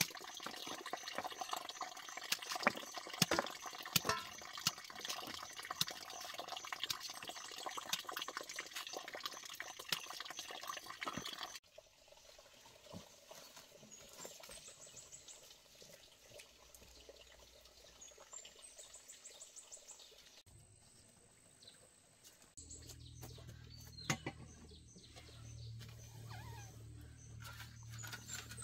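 Knife chopping peeled potatoes into a metal pot: a run of sharp, irregular taps and clicks over a steady watery hiss. After a cut the sound turns quieter with a few high bird chirps, and in the last seconds a steady low rumble sets in.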